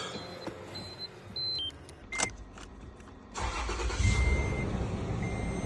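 A Toyota with a no-crank, no-start fault starting up after the repair: the engine catches a little past halfway and keeps running. Short electronic dashboard beeps sound a few times before the start, and a lower beep repeats over the running engine.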